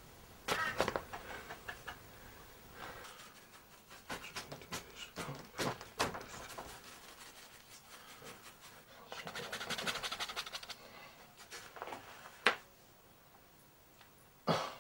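Scattered knocks, clicks and handling noises, with a person's heavy breathing and a long breathy exhale about nine seconds in.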